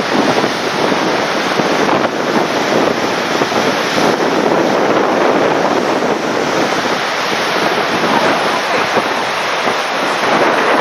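Steady rush of the Gullfoss waterfall's falling water, loud and unbroken.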